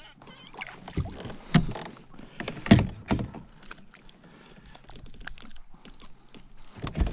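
Thumps and knocks on a fishing kayak as a just-landed largemouth bass is lifted aboard and handled. There are four loud knocks between about one and three and a half seconds in, quieter scraping and rustling after them, and another knock near the end.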